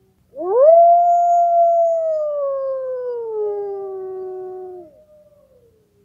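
Wolf howling as a timer alarm, signalling that the countdown has run out. One long howl rises quickly, holds, then slowly falls before cutting off about five seconds in, and a fainter second howl trails off downward near the end.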